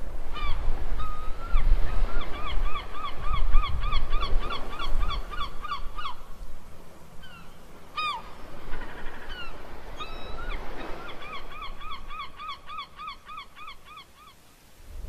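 Birds calling in two long runs of short, arched notes, about three or four a second, with a few single calls between, over a low steady rumble; it all fades out near the end.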